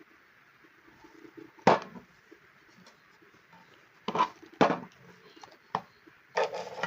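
A few sharp knocks and clunks of the electric drill being handled. The loudest comes about a second and a half in and two more about four seconds in. The drill's motor is not running.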